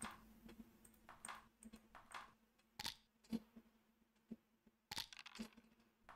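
Near silence broken by about a dozen faint, irregular clicks from play on a computer backgammon game as checkers are borne off, with a faint steady hum underneath.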